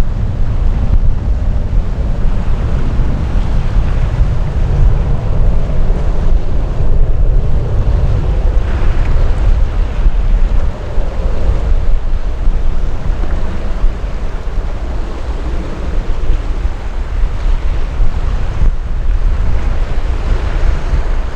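Wind buffeting the microphone: a loud, gusty low rumble that rises and falls irregularly.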